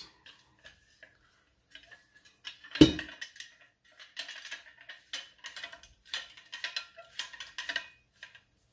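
Small folding spade-and-pick tool being worked by hand: one loud knock about three seconds in, then a run of metal clicks and rattles as its hinged head is folded and set.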